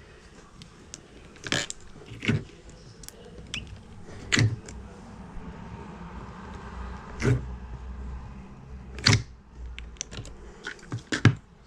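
Small plastic slime-kit charms and their containers being handled: scattered clicks and taps at irregular intervals, with a quick cluster of them near the end.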